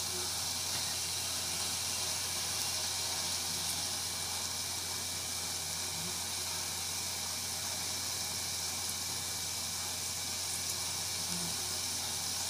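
Onion-tomato masala sizzling in oil in a steel pot: a steady, even hiss with a low steady hum underneath.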